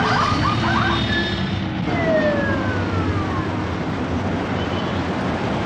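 Congested city traffic running, a steady rumble of engines, with one falling tone about two seconds in, like a siren winding down.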